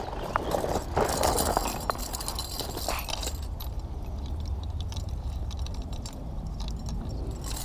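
Metal snap clips on a rope fish stringer clinking and rattling as it is handled, with rustling around the first few seconds. A steady low wind rumble on the microphone runs underneath.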